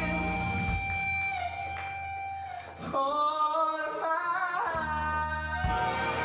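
Big band playing with a male singer holding long sung notes. About three seconds in the band's low end drops away under the wavering voice, then comes back in before the end.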